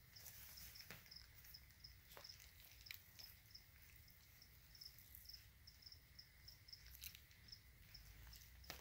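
Crickets in lizard tanks chirping faintly: a steady run of short, high chirps, several a second. A few faint clicks sound now and then.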